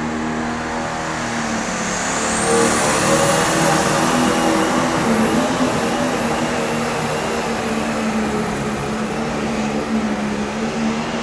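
Tractor-pull tractor's engine running at steady revs, with a high whine that rises about two seconds in and then holds.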